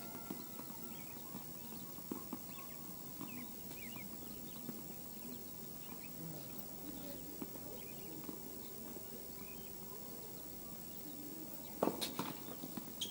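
Quiet outdoor background with faint scattered ticks, then about twelve seconds in a short cluster of sharp knocks from a tennis ball.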